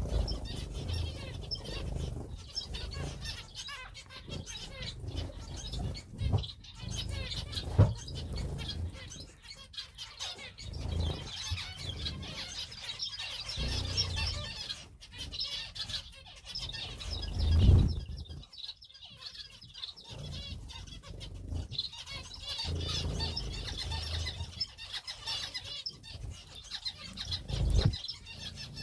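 Small cage birds, finches and canaries, chirping continuously and fluttering their wings, with several low thumps, the loudest about eight and eighteen seconds in.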